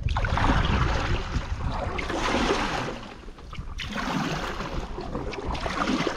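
Stand-up paddle strokes swishing and splashing through river water, coming as a few separate washes of splash, with wind rumbling on the microphone underneath.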